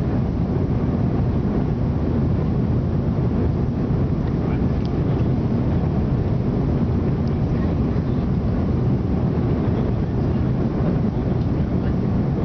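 Steady cabin noise of a jet airliner in flight, heard from a window seat over the wing: engines and airflow as an unbroken low-pitched noise during the descent to land.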